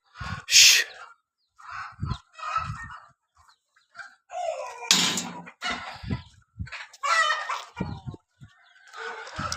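Chickens clucking and calling in short, irregular calls, with a rooster crowing among them.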